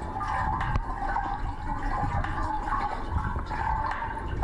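Water churning and bubbling, heard muffled through a camera held underwater, as a German Shepherd paddles in a hydrotherapy pool. A steady wash with small clicks and pops through it.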